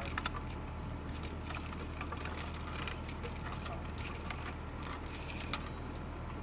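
Belts of linked machine-gun cartridges clinking and rattling as they are handled and fed into a weapon station, with many small irregular metallic clicks over a steady low hum.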